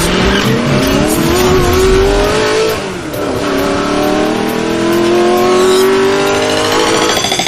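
Car engine accelerating hard as an intro sound effect. The revs climb, drop at a gear change about three seconds in, then climb again.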